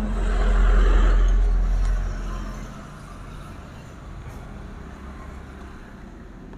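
A road vehicle passing by: a low rumble that swells over the first second and fades away by about two and a half seconds, leaving a faint steady hum.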